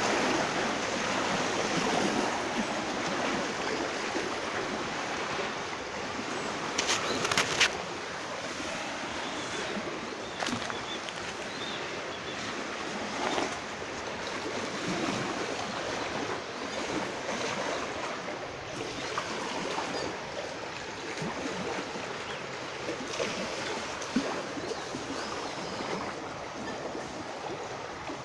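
Steady outdoor background noise, an even hiss with no tones in it, broken by a pair of sharp clicks about seven seconds in and a few fainter ticks later.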